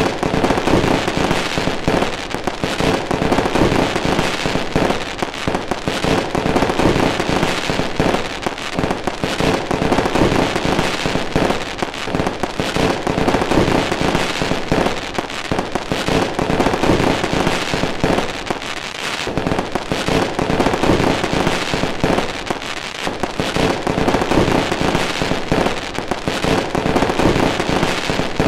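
Fireworks going off in a continuous barrage of many overlapping bangs and crackles, swelling and easing slightly in loudness without a break.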